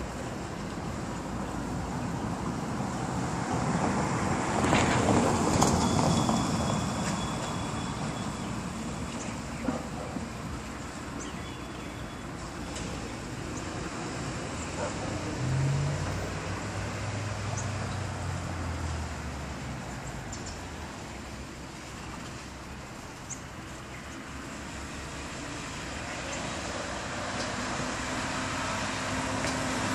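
Street traffic: cars running and idling in a slow line, with one vehicle passing loudly about five seconds in and a low engine hum around the middle.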